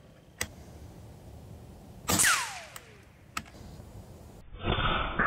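A shot from a .25-calibre AEA HP Standard Custom PCP air rifle about two seconds in, with the pellet hitting a steel knockdown target that rings with a tone falling in pitch. Single sharp clicks come shortly before and after it, and a rush of noise sets in near the end.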